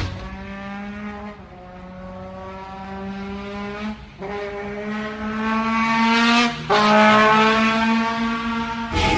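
An engine accelerating hard through the gears: its pitch climbs steadily in each gear and drops back at three upshifts, about a second and a half in, about four seconds in and near seven seconds. It cuts off near the end.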